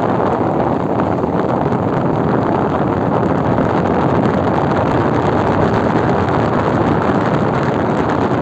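Air conditioner airflow: a steady, loud, low rush of blowing air.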